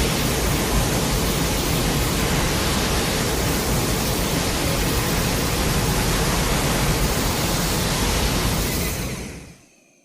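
Kaiju sound effect: a steady, dense rush of noise with no pitch to it, which fades out near the end.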